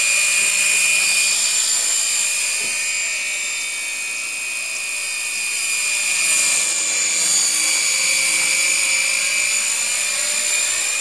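Walkera 4F200LM electric radio-controlled helicopter in flight: a steady high-pitched whine of its motor and rotors. It eases slightly about four seconds in and swells again.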